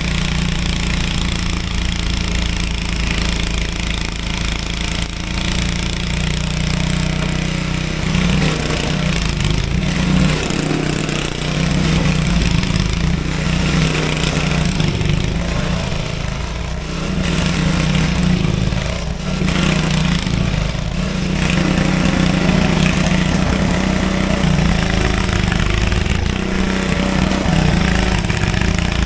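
A Craftsman 5 hp, 24-inch snowblower's small gasoline engine running steadily while clearing snow.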